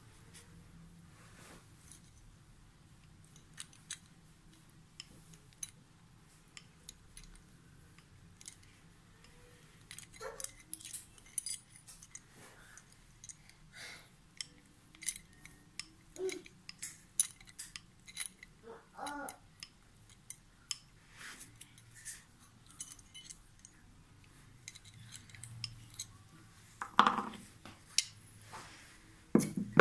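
Scattered metallic clicks and clinks of steel plate-bending pliers gripping and bending a perforated pelvic bone plate, coming more often after the first third. There are two louder knocks near the end.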